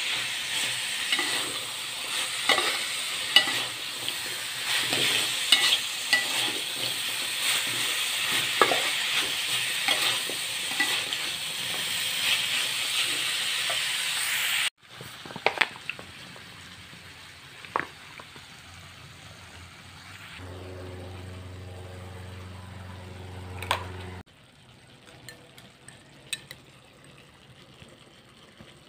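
Orek tempe, strips of tempeh with chilies and shallots, sizzling as it is stir-fried in a stone-coated wok, with a metal spatula scraping and tapping against the pan. About halfway through the sizzle cuts off abruptly, leaving a much quieter stretch with a few spatula taps and a low steady hum lasting a few seconds.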